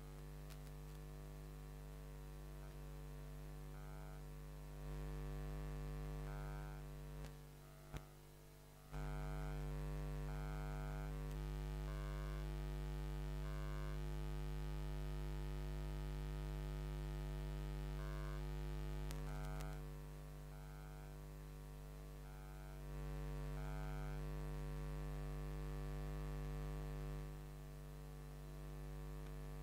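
Steady electrical mains hum with many evenly spaced overtones, swelling louder and dropping back several times.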